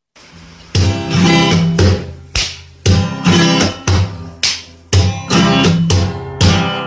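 Background music: a strummed acoustic guitar playing sharp, rhythmic chords about once a second.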